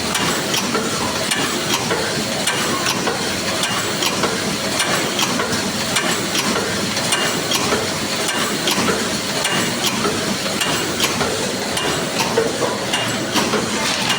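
Paper cup forming machine running, a dense clatter of quick clicks and knocks over a steady mechanical noise.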